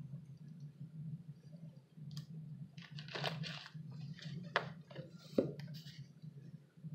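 A steady low hum, with a cluster of rustling and crackling noises in the middle, ending in two sharp clicks about a second apart.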